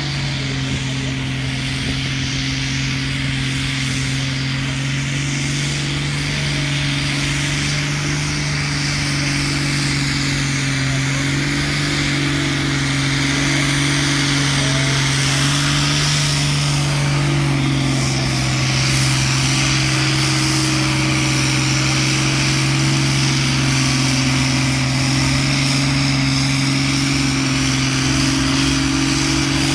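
Diesel farm tractor engine running hard under heavy load as it drags a weight-transfer sled: a steady low drone that grows gradually louder over the first dozen seconds or so.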